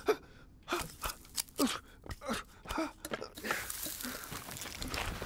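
Cartoon foley of a wooden stick figure clambering over fireplace logs: a quick run of small wooden knocks, creaks and crunches, then a softer scraping rustle from about halfway through.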